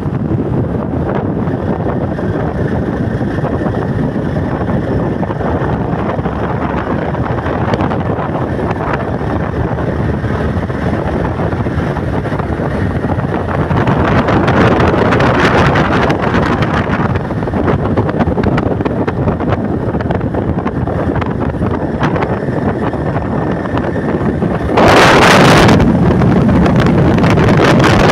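Wind buffeting the microphone of a moving motorcycle, over the steady running of its engine. The wind noise swells around the middle and jumps louder near the end.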